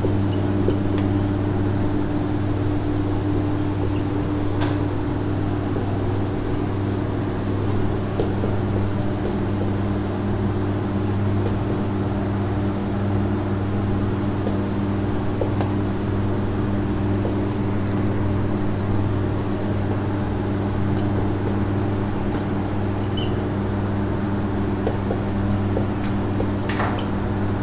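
Steady low machine hum of a fan or air conditioner running, even in level throughout, with a few faint clicks of the marker on the whiteboard.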